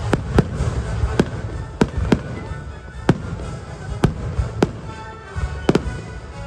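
Fireworks bursting: a string of sharp bangs at irregular intervals, about a dozen, over a low rumble, with a music soundtrack playing underneath.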